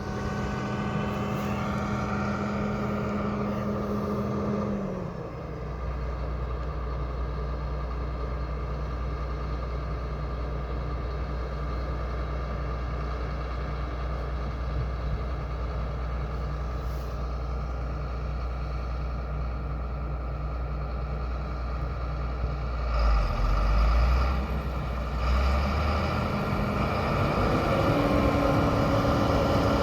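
Heavy farm vehicle's diesel engine running steadily under the cab. It drops in speed about five seconds in, surges briefly a few seconds before the end, then picks up to a higher pitch.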